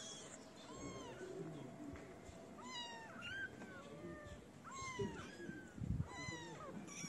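Several kittens meowing again and again in short, high, arching calls, often overlapping one another. A few low thumps come about five to six seconds in.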